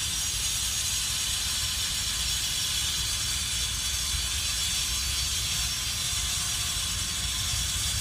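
Steady outdoor background noise: an even hiss over a low, unsteady rumble, with no distinct event standing out.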